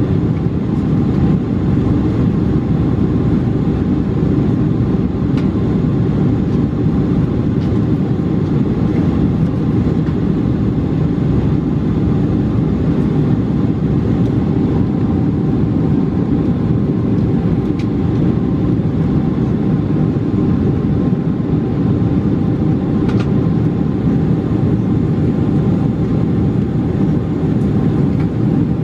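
Steady roar of a Boeing 747-436's Rolls-Royce RB211 turbofans and airflow heard inside the cabin from a window seat over the wing, with a faint steady hum above the rumble.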